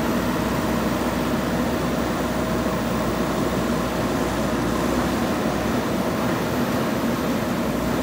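JCB 3DX backhoe loader's diesel engine running steadily while the backhoe arm digs and lifts soil.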